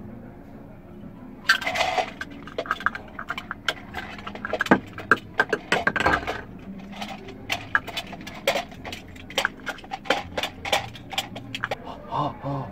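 A rapid, irregular clatter of sharp clicks and knocks from hard Foley props handled and struck together, starting about a second and a half in. A short sound with a pitch to it comes near the end.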